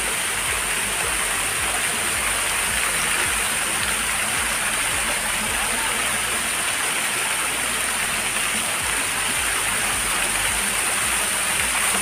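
Waterfall: water cascading over rock ledges and splashing onto stone, a steady rushing.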